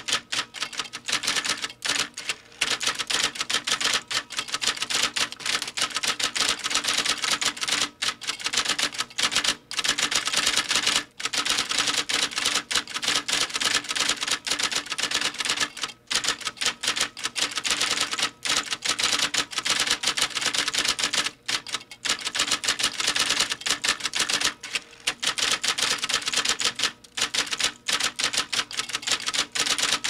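Typewriter keys struck at a fast pace, a dense run of sharp mechanical clacks broken by brief pauses every few seconds.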